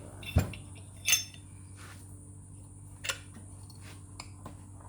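Small metal parts and tools being handled on a workbench during turbocharger assembly. A dull knock comes just under half a second in, a bright ringing metal clink about a second in, and a lighter clink about three seconds in, over a steady low hum.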